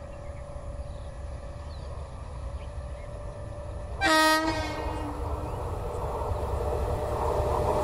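Electric locomotive's horn gives one short blast about four seconds in as an express train approaches; after it the rumble of the oncoming train grows steadily louder.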